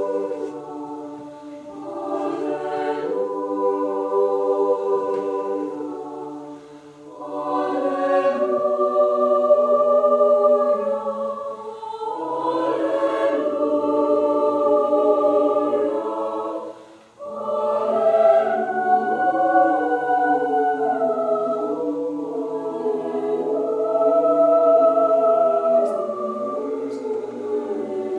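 Choir singing in several sustained parts, in phrases that pause briefly for breath about 7 and 17 seconds in.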